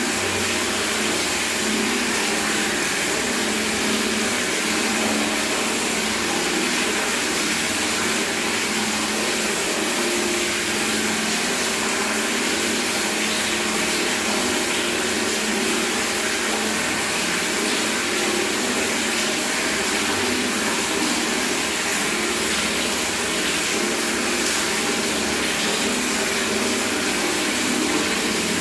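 Tap water running steadily from a faucet straight into a bucket, a continuous splashing with no break.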